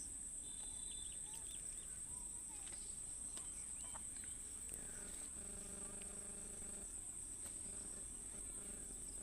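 Faint, steady, high-pitched insect trill, typical of crickets, with a few short chirps over it.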